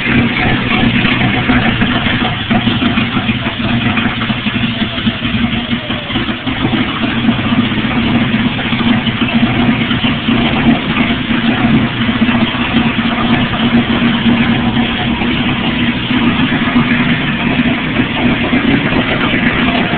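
Freshly rebuilt Onan marine generator engine running steadily at constant speed on a test stand.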